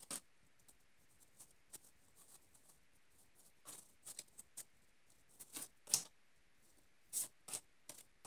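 Pokémon trading cards and a foil booster pack being handled: scattered short rustles and card slides with quiet gaps between, the loudest about six seconds in.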